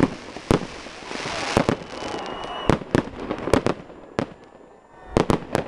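Fireworks going off: a rapid, irregular string of sharp bangs, with a crackling hiss through the first couple of seconds. The bangs ease off briefly near the end before a quick cluster of three or four more.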